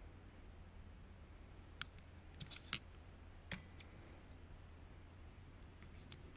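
A few light clicks of small parts being handled: carbon vanes picked out of a steel parts tray and set into the slots of a dry vacuum pump's rotor. There are about six separate clicks, the loudest a little under three seconds in, over a faint low hum.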